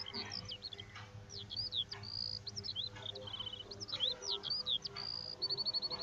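Small songbirds chirping: quick high notes sweeping up and down, with two short rapid trills. They sound faint, as a background bed.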